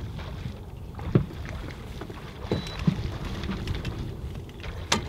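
Wind rumbling on the microphone aboard a small boat on the water, broken by several sharp knocks, the loudest one near the end.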